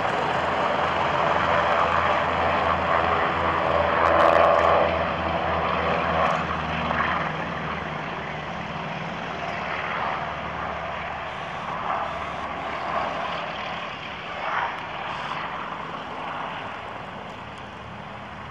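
Twin radial piston engines of C-47/DC-3 transport aircraft running at take-off power with a propeller drone. It is loudest about four seconds in and fades as the aircraft pull away across the field.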